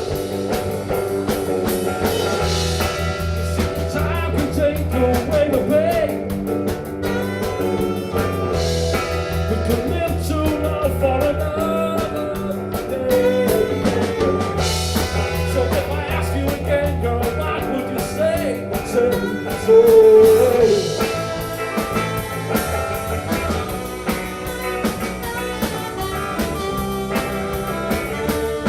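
Live rock band playing an instrumental break: a bending lead melody over bass, drums and cymbals, swelling loudest about two-thirds of the way through.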